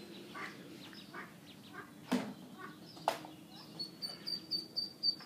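Ducklings peeping: a few faint calls at first, then a steady run of high, short peeps about four a second over the last second and a half. Two sharp clicks about two and three seconds in.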